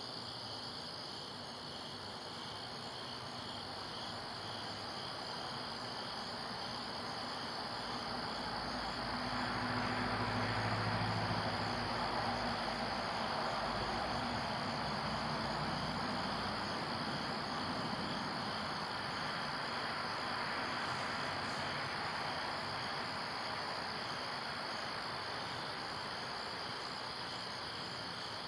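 Crickets chirping steadily in a continuous high, pulsing chorus. A low rushing sound swells up about a third of the way in and fades away again over roughly ten seconds.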